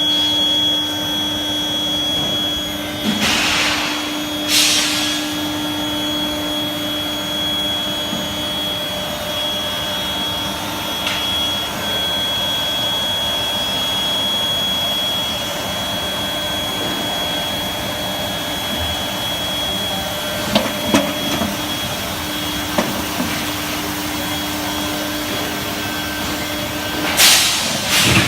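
Induction hardening and tempering line running: a steady machine noise with a thin high whine and a low hum, two hissing bursts a few seconds in and again near the end, and a few metallic clanks in the second half.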